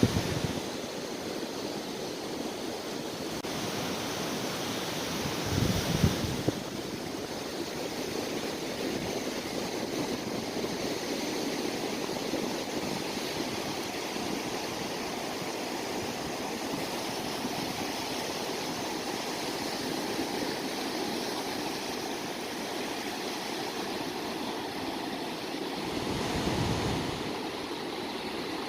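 Sea surf washing steadily on the shore, with brief low rumbles of wind on the microphone about six seconds in and again near the end.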